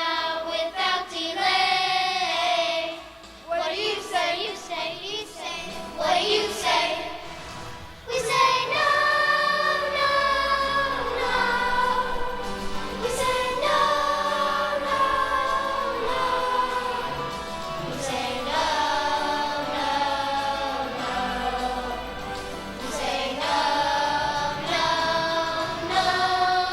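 Choir singing a song over instrumental backing, with short phrases at first and long held notes from about eight seconds in.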